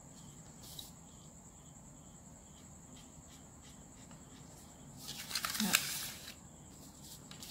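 Sheets of drafting paper rustling and sliding as the pattern paper is turned on the table, about five seconds in, over a faint steady high whine.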